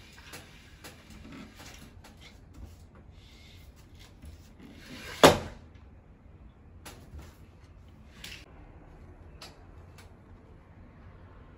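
One sharp knock at a sliding glass door with a metal frame about five seconds in, the loudest thing here, among faint rustling and a few light clicks.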